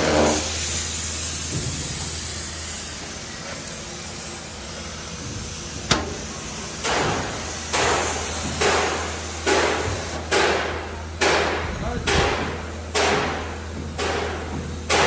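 Steady low hum, then from about seven seconds in a regular series of hammer blows on metal, a little faster than one a second.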